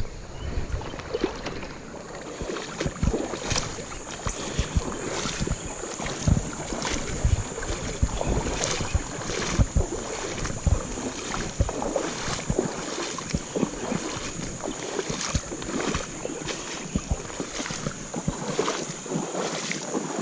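Shallow, rocky creek flowing and babbling: a steady rush of water with many small irregular splashes.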